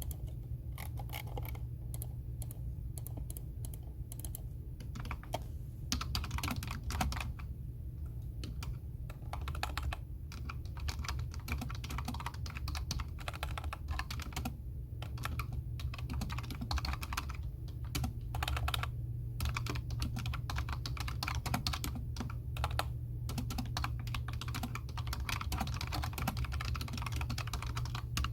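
Typing on a computer keyboard: irregular runs of keystroke clicks, sparse for the first few seconds and then faster and denser, over a steady low hum.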